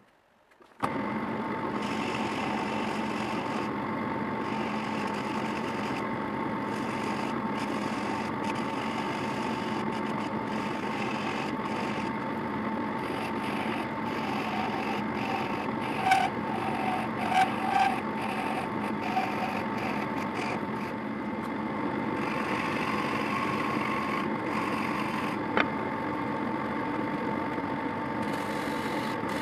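A drill press starts about a second in and runs steadily, spinning a wooden blank like a lathe, with a hand-held flat blade scraping the turning wood. Louder, irregular scrapes come around the middle.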